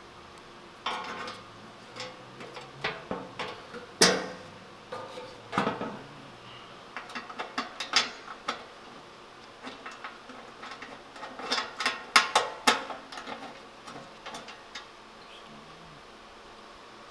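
Irregular metallic clinks and clanks as the steel skid plate and its 12 mm bolts are handled and refitted under the truck. The sharpest single clank comes about four seconds in, and a quick run of clicks follows later.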